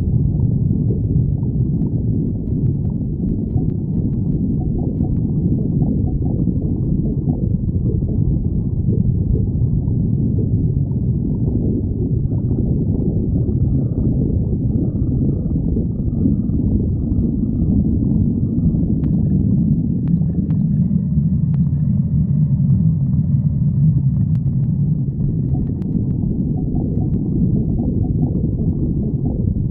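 A stomach growling loudly: a continuous low rumble and gurgle, with thin, higher squealing tones joining in through the middle stretch.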